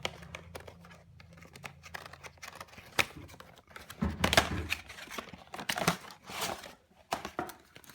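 Packaging being handled and opened: irregular rustling, crinkling and tearing with scattered clicks and knocks, busiest around the middle.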